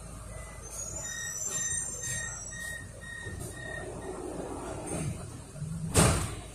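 Door-closing warning beeps on a Melbourne E-class tram standing at a stop: a run of short high beeps, about two a second, lasting a few seconds. A loud thump follows near the end.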